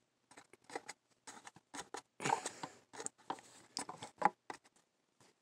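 Hands handling a DVD case in a cardboard slipcover, making irregular faint scratchy clicks and rubs as the grip shifts.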